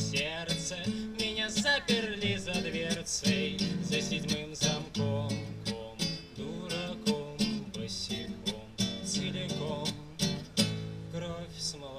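Strummed acoustic guitar with a man singing over it, a Russian bard song heard through the stage sound system.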